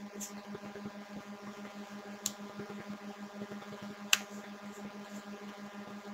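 Steady low hum with two sharp mouse clicks, one about two seconds in and a louder one about four seconds in.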